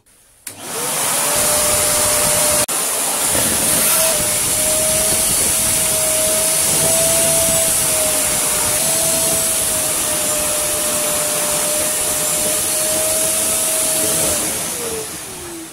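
Tough Master 1000 W wet-and-dry cyclonic vacuum switching on and running steadily with a whine while it sucks up water into its clear bin. Near the end it cuts out by itself and winds down with a falling pitch: its full-level cut-off has tripped because the water has reached the bin's full line.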